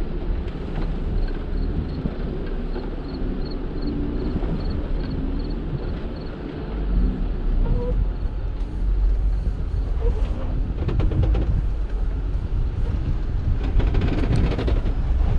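Jeep Wrangler JL Rubicon driving over rough trail: a steady low rumble of engine and tyres that gets louder about halfway through. There are faint rapid ticks over the first few seconds, and scattered knocks and rattles later on.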